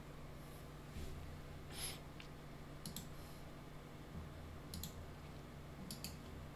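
Computer mouse clicking quietly, the clicks coming in quick pairs a few times, over a faint steady low hum.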